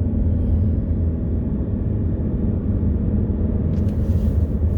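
Strong wind buffeting the microphone as a steady low rumble, with a brief hissing gust about four seconds in.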